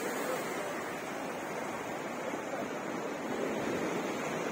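Black Sea surf washing against the rocky shore: a steady rush of breaking water that swells slightly near the end.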